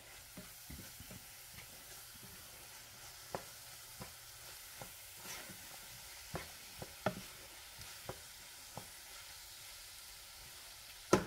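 Chopped peppers, tomato and onion frying in a nonstick pan: a faint steady sizzle, with a spatula stirring and giving scattered light scrapes and taps against the pan. A louder knock comes near the end.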